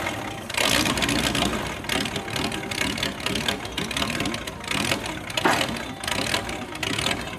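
Ford 8N tractor's 100-horsepower flathead V8 truck engine running with rapid exhaust pulses through open, homemade header pipes as the tractor drives slowly. It is pretty noisy.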